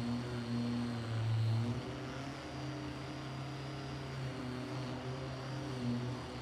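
An electric power tool's motor running steadily with a low hum, with small shifts in pitch and level.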